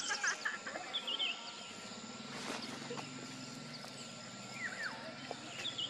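Outdoor ambience of small birds chirping and whistling on and off. A low drawn-out drone is heard for about two seconds in the middle.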